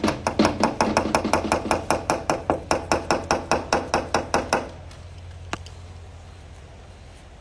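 A rapid, even series of sharp knocks, about five a second, that stops abruptly a little over four and a half seconds in.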